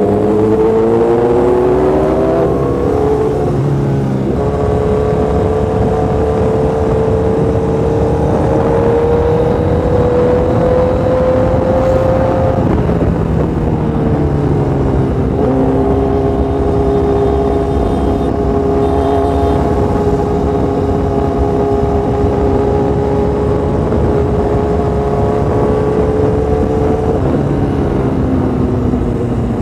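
Honda CBR1000RR inline-four engine cruising on the road with wind rush over it. The engine note rises, drops sharply about four seconds in as it shifts up, then climbs slowly; it falls back around the middle and dips again near the end before picking up.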